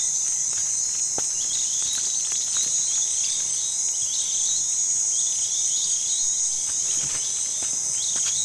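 Crickets and other insects trilling in a steady chorus, with short chirps repeating every half second or so above it.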